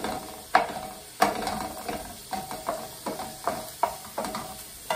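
A wooden spatula stirring chopped sausage and eggplant frying in a nonstick pan, scraping and knocking against the pan about twice a second over a steady sizzle.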